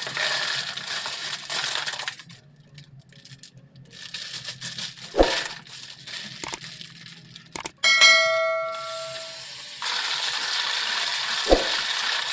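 Kitchen handling sounds of metal cookware: a few sharp knocks, then a metal pan or bowl struck once and ringing for about a second and a half, followed by a steady hiss with one more knock near the end.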